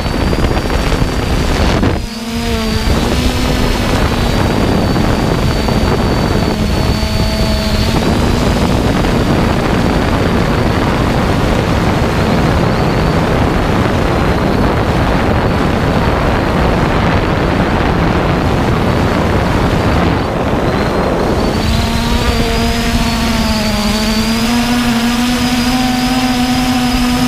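3DR Iris+ quadcopter's electric motors and propellers whining at a steady pitch, picked up by the drone's onboard camera. Heavy wind noise on the microphone mostly covers the whine through the middle, and it comes through clearly again in the last few seconds.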